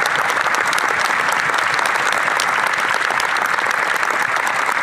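Steady, loud applause from many members of Parliament clapping together.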